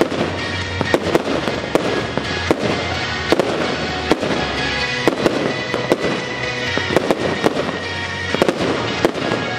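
Aerial firework shells bursting one after another at an irregular pace, several bangs every second or two, over continuous music.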